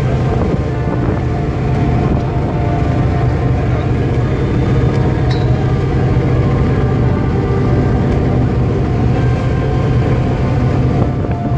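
Purse seine fishing boat's engine and deck machinery running with a steady low drone.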